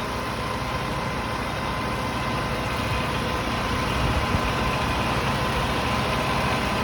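Heavy equipment engine idling steadily, with a thin steady whine above the engine noise; it grows slightly louder about four seconds in.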